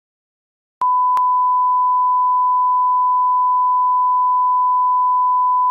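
A steady 1 kHz reference test tone, a pure unchanging beep, that starts with a couple of clicks a little under a second in.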